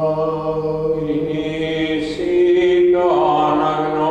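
Byzantine chant in a Greek Orthodox church: a male voice sings long held notes over a steady low drone (the ison). The melody steps to a new note about two seconds in and again about three seconds in.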